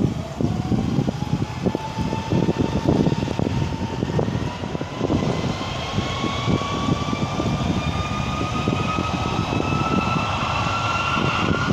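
Airbus A330-300's Rolls-Royce Trent 700 turbofans spooling up for takeoff: a whine rising steadily in pitch, under a gusty rumble of wind on the microphone.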